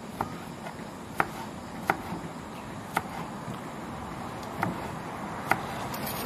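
Kitchen knife slicing palm shoot (umbut) into thin strips on a plastic cutting board: separate sharp knocks of the blade hitting the board, irregularly spaced about a second apart.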